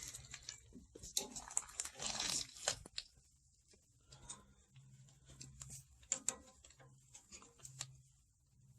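Scattered small clicks, knocks and scrapes of hands and tools working on the tractor's lift linkage.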